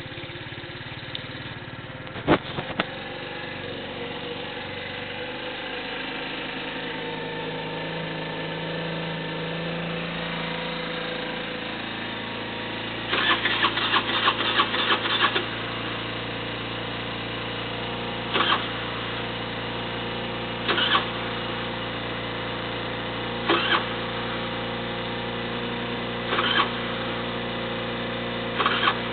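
A 50cc moped engine running at a steady idle on a cold start after five months laid up. There is a sharp knock about two seconds in, a rapid clatter around the middle, and then brief sharp bursts every two to three seconds.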